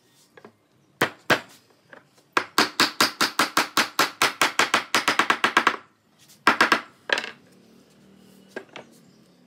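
A hammer knocking a wooden joint of a chair frame together: two blows, then a quick even run of about twenty blows at roughly six a second, then a few more.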